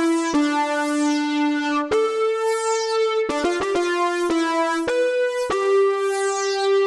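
Sampled Minimoog synth lead from the IK Multimedia Syntronik Minimod library playing one note at a time. Quick runs of short notes alternate with held notes, and each note opens bright, its filter sweeping closed.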